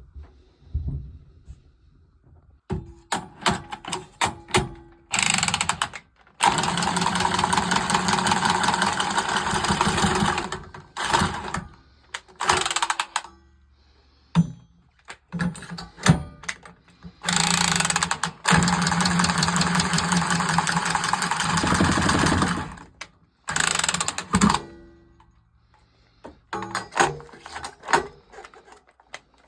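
A power tool running in repeated bursts: several short runs, then two long runs of about four and five seconds, each a steady hum with a fast rattle, with clicks and knocks between runs.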